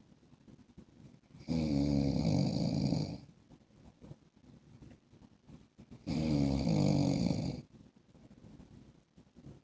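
A man snoring: two rasping snores, each about a second and a half long and some four and a half seconds apart, with much quieter stretches between.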